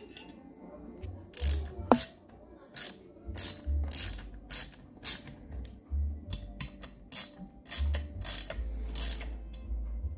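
Socket ratchet wrench clicking in short repeated strokes, about two a second, as bolts are turned down on a steel motor bracket, with one sharp metal clink about two seconds in.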